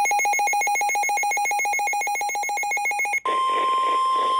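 A weather alert radio's rapid electronic alarm beeping, about ten beeps a second, cuts off about three seconds in. The NOAA Weather Radio warning alarm tone, a steady single-pitch tone of 1050 Hz, then comes in over a hiss of radio static, signalling a warning broadcast.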